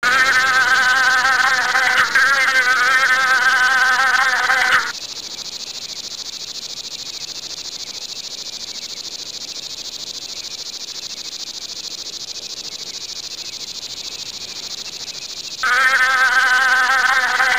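Insect sound effect: a steady high hiss of insects throughout, with a louder buzzing drone that wavers in pitch for the first five seconds, drops out, and returns near the end.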